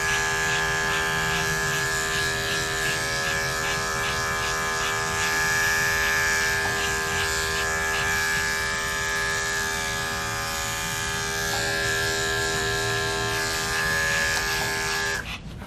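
Electric dog grooming clippers running with a steady buzzing hum as they shave through a matted coat, switched off abruptly near the end.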